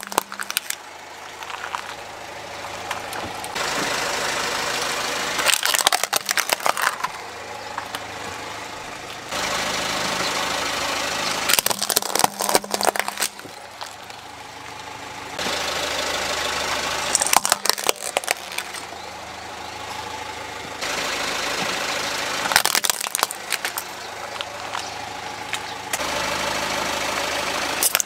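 Car engine running slowly as its tyre rolls over plastic toys, with four bursts of sharp cracking and snapping as the plastic breaks, about six seconds apart.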